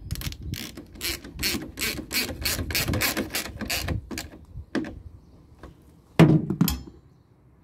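Socket ratchet clicking rapidly, about four clicks a second, as it is swung back and forth to tighten the expansion tank's retaining bolt. The clicking stops about four seconds in. A single click and a louder knock follow near the end.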